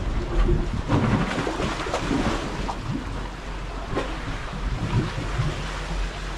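Wind buffeting the microphone in uneven gusts, over the wash of sea water against breakwater blocks.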